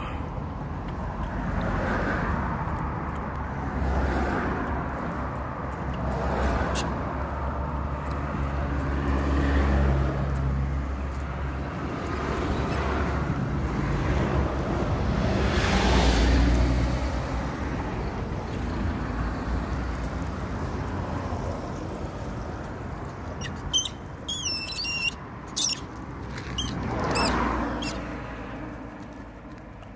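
Road traffic going by: a low rumble of passing cars that swells and fades several times. Near the end comes a brief cluster of high squeaks and sharp clicks.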